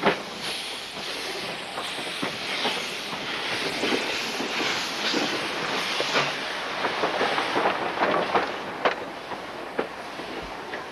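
Railway wagon rolling along the track: a steady rushing noise from the wheels, with many irregular clicks and knocks from the running gear and rail joints.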